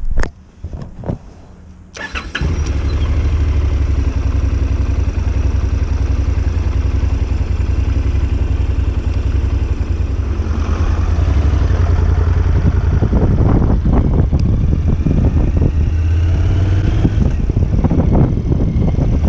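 Honda NC750X motorcycle's parallel-twin engine starting about two seconds in, after a few clicks and knocks, then running steadily with a loud low rumble.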